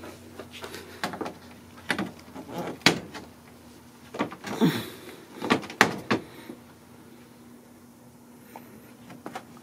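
Hand tools and bumper parts being handled: a series of sharp clicks and knocks, about eight in the first six seconds, then a quieter stretch over a faint steady hum.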